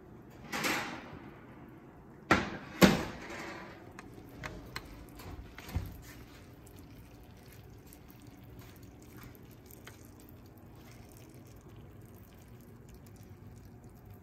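Oven rack sliding out with a brief rattle, then two loud clunks and a few lighter knocks as a glass baking dish is lifted out and set down on the stovetop and the oven is shut, then quiet room tone.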